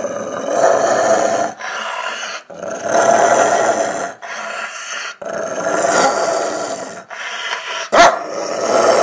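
Rottweiler growling in long bouts, each a second or two, with quieter growling between them, and one sharp bark near the end that is the loudest sound.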